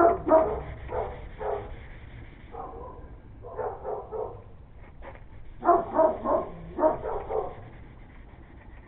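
A dog barking in three quick volleys of short barks.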